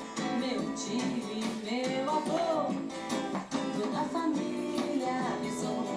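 Forró song playing, with guitar and a melody line.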